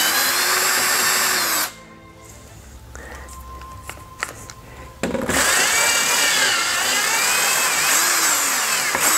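Cordless drill with a step bit boring through 6-inch PVC pipe, its motor pitch rising and falling under load. About two seconds in the drill stops for roughly three seconds, with a few light clicks, then cuts again for about four seconds.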